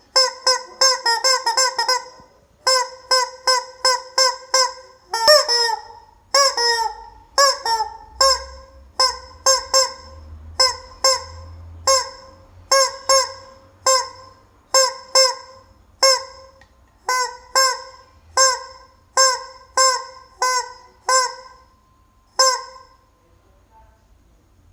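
Rubber chicken squeeze toy squawking again and again, each squeeze a short honk. A quick flurry of squawks comes in the first couple of seconds, then they settle to about one a second and stop a little before the end.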